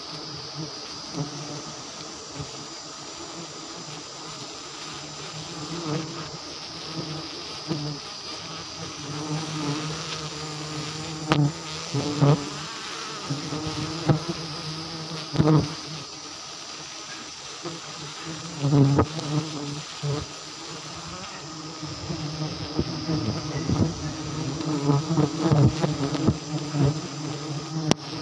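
A swarm of disturbed giant honeybees buzzing in a dense, steady hum as their colony is cut from the tree. Repeated rustles and knocks from branches and leaves come through the buzz.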